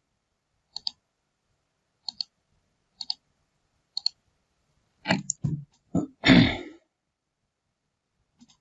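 Computer mouse button clicks, each a quick press-and-release pair, coming about once a second. Then, about five seconds in, a louder cluster of short, unclear knocking sounds, the loudest near the end of the cluster.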